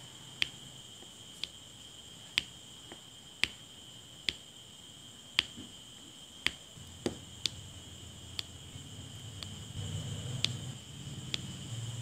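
Diamond painting drill pen tapping round resin drills onto the sticky canvas, a sharp click about once a second. A steady high whine sits underneath, and a low rumble rises near the end.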